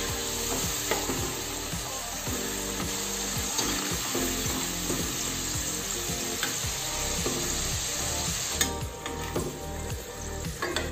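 Potato sticks deep-frying in hot oil in a small metal kadai: a steady sizzle, with a few light clinks of a metal slotted spoon stirring and scooping. This is the first fry, par-frying the fries before they brown. The sizzle gets quieter about nine seconds in as most of the fries are lifted out.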